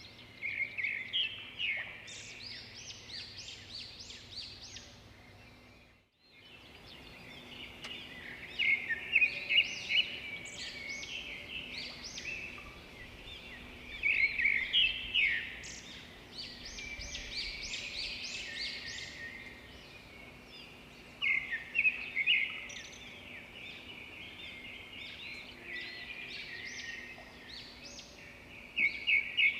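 Bird calls: repeated bursts of rapid, chattering notes every few seconds, with quieter chirping between them.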